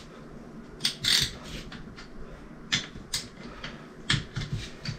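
Scattered metallic clicks and clinks, about six in a few seconds and loudest about a second in, as a wrench works on the shaft nut of a Kenne Bell twin-screw supercharger rotor.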